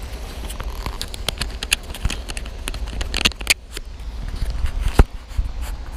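Irregular clicks, knocks and rustles of fishing gear and clothing being handled close to a body-worn microphone, with one sharp knock about five seconds in. Low wind rumble runs underneath.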